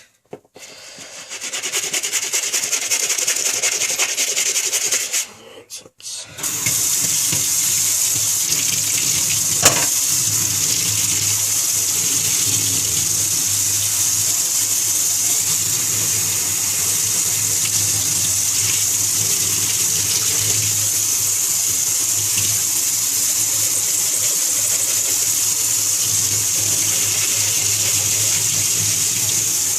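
A water tap running steadily, starting about six seconds in after a short pause.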